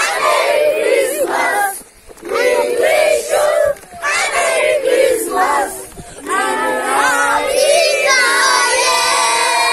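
A group of young children shouting together in unison, in short phrases with brief pauses between them, ending in a longer, high-pitched held shout.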